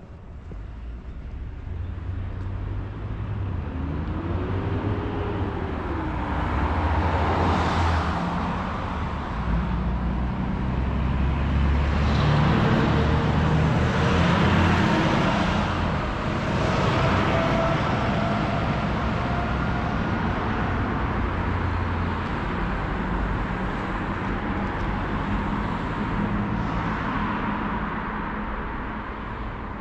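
Road traffic: motor vehicles passing one after another, with a low engine hum under a rushing tyre noise that swells and fades several times, loudest in the middle.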